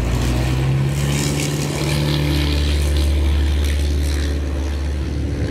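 Loud, steady engine drone with a low hum.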